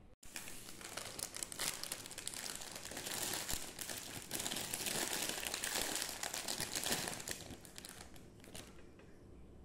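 Thin clear plastic bag crinkling and rustling as a hand handles it, a dense run of small crackles that dies away near the end.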